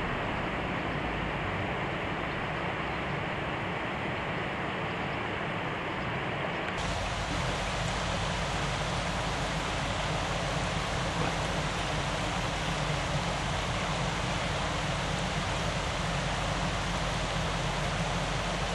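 Steady rush of river water running over rocks and small rapids, turning brighter and hissier about seven seconds in.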